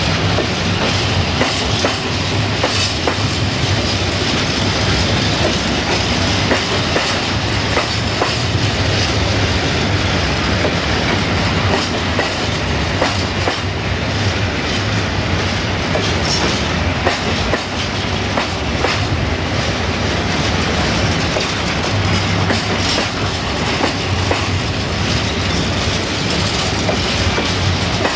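Empty stake flat wagons of a long freight train rolling past, with a steady rumble of wheels on rail and a scatter of clicks and clatter as the wheels run over the rail joints.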